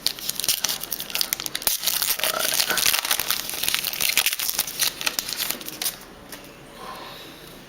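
Plastic-foil wrapper of a trading card pack crinkling as it is handled, with many rapid small crackles; it dies down about six seconds in.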